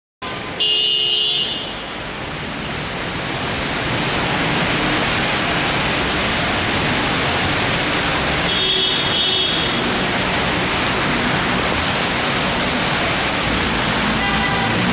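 Steady rushing noise of floodwater running down a street, with vehicles driving through it. A short high-pitched tone sounds near the start and again about nine seconds in, and a vehicle engine comes up near the end.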